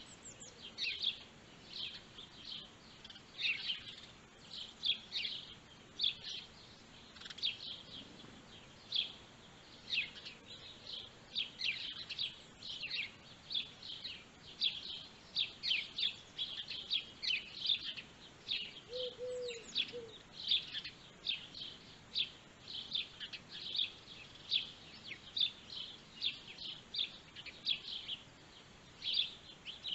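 Small birds chirping: a continuous run of short, high chirps, several a second, with one brief lower note about two-thirds of the way through.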